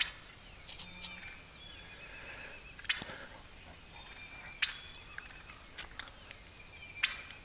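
Wild turkey gobbling: three loud, short gobbles a second or two apart, with softer calling in between.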